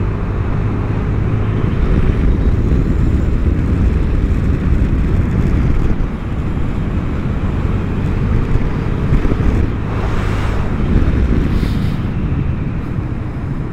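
Vespa GTS300 HPE scooter's single-cylinder engine running steadily under way, mixed with heavy wind rush on the microphone.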